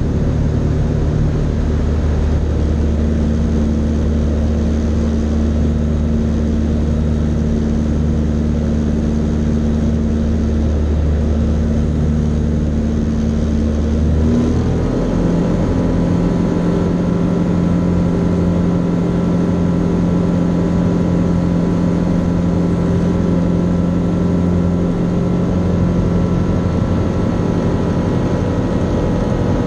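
Fly Synthesis Storch S ultralight's engine and propeller droning steadily in flight, heard from inside the cockpit. About halfway through, the engine note shifts abruptly to a different pitch and holds there.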